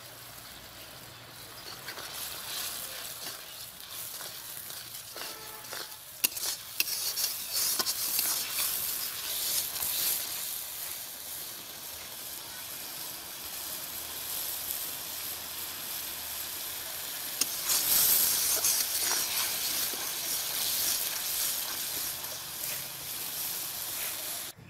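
Onion-and-spice masala sizzling in hot oil in a metal kadai, with a spatula scraping and knocking against the pan as it is stirred; the sizzle grows louder for a few seconds past the middle.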